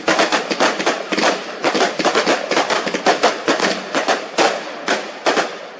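Fireworks going off in a rapid string of sharp bangs, about five a second, stopping shortly before the end.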